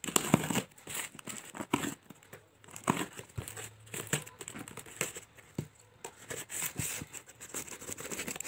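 Packing tape being torn and peeled off a cardboard parcel, with irregular crinkling rustles and light knocks of hands on the box.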